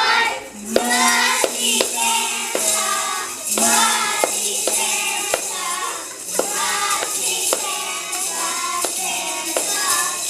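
A children's choir singing a Christmas song with music accompaniment and tambourines struck on a steady beat.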